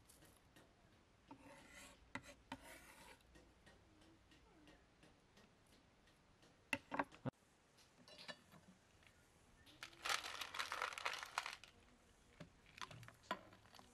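Kitchen hand-work sounds: a short stretch of scraping early on, a few sharp knocks about seven seconds in, and a longer, louder stretch of scraping from about ten seconds in.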